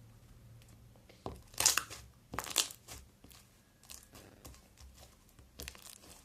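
Slime being squeezed and stretched by hand, giving sharp crackling and popping bursts, the loudest about a second and a half in and again at two and a half seconds, with smaller clicks after.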